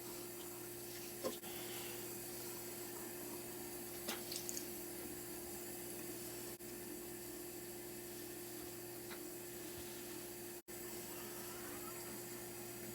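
Cold water running steadily from a tap into a sink while makeup brushes are rinsed under it, with a couple of brief knocks about a second in and about four seconds in. The sound drops out for an instant about ten seconds in.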